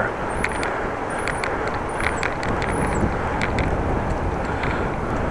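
Steady wind rushing over the microphone and a bicycle rolling along, with a faint high squeak repeating about once a second.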